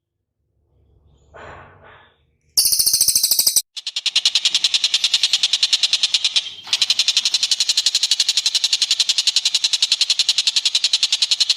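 A bird's loud, high-pitched rattling trill, very fast pulses at about eight a second. It starts about two and a half seconds in after a faint short call, breaks off briefly once, and runs on unbroken.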